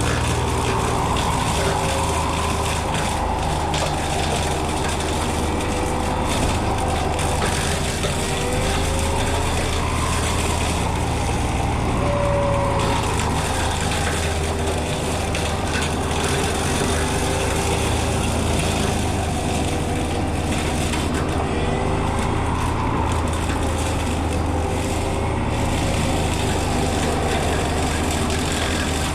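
Small excavator's diesel engine running steadily, with the whine of its hydraulic rotary brush-cutter head rising and falling in pitch as the blades cut through heavy brush.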